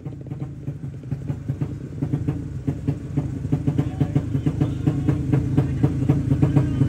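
Racing motorcycle engine running rough, its steady low drone broken by rapid, irregular pops and growing louder: the stutter (brebet) of an engine misfiring.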